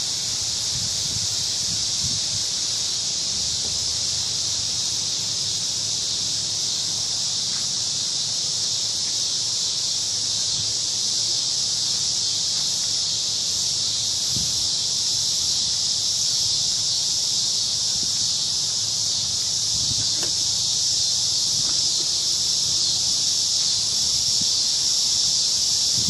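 Chorus of crickets, a dense, steady high-pitched shrill that never breaks.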